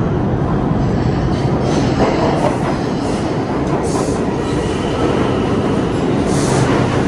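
New York City subway train running into the station close alongside the platform: a steady rumble of steel wheels on rail, with several short, high wheel squeals.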